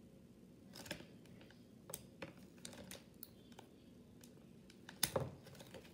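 Small scissors cutting a plastic zip-top bag: scattered quiet snips and crinkles at uneven intervals, with a louder click near the end.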